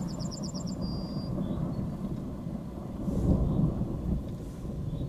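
Distant thunder rolling, a low continuous rumble that swells about three seconds in. A short run of high chirps sounds near the start.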